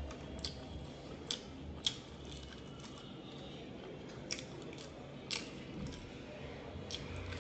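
Biting into and chewing a crumb-coated Kolkata fish fry, with several sharp crisp crunches spread through the chewing.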